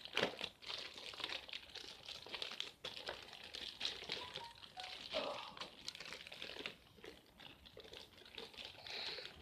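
Toy packaging crinkling and rustling as it is handled and worked open, in irregular crackles and scrapes.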